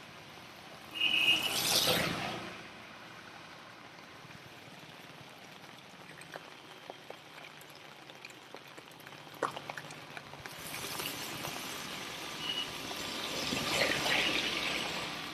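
Rushing, splashing floodwater, swelling loudly about a second in and again, more slowly, over the second half.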